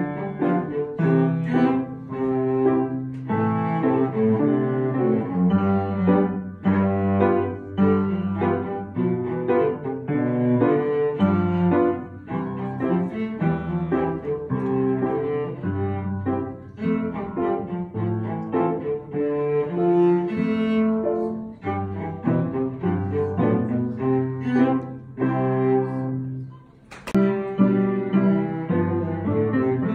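Solo cello played with the bow: a continuous line of sustained notes changing quickly, with a brief break and a single sharp click near the end.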